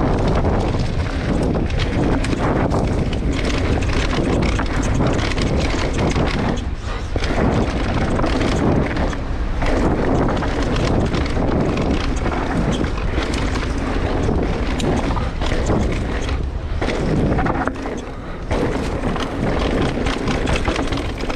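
Canyon Strive:ON CFR electric mountain bike descending rough ground, its frame and parts rattling in quick irregular clicks over the noise of the tyres, with wind buffeting the microphone. The rattling is a fault present since the bike was new.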